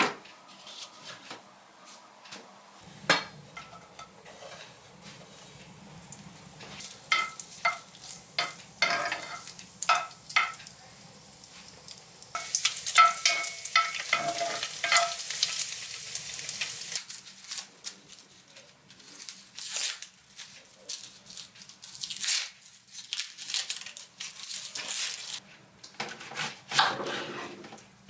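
Food sizzling in a frying pan, loudest from about halfway, with a utensil stirring and clicking against the pan.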